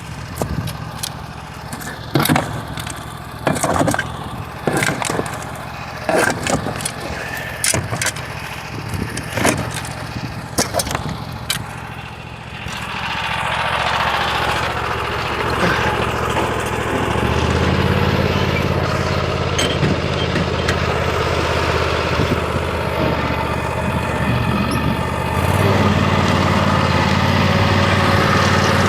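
Tractor diesel engine idling under a run of sharp knocks and scrapes. About halfway through the engine speeds up and runs louder, stepping up again twice.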